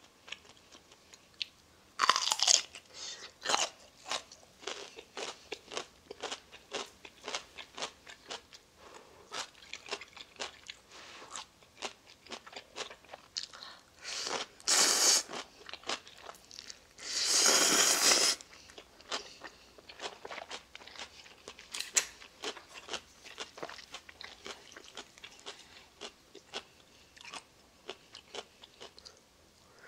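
Crunching bites and chewing of chonggak (ponytail radish) kimchi close to the microphone: a loud crunch about two seconds in, then a steady run of crisp crunches. About halfway through come two loud slurps of noodles.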